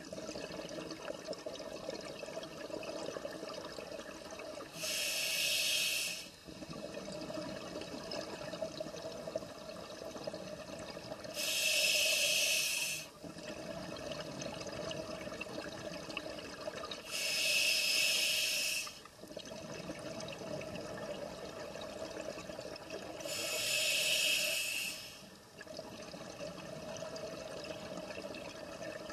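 Scuba diver breathing through a regulator underwater: four loud bursts of exhaled bubbles, about six seconds apart, with a quieter steady rush between them.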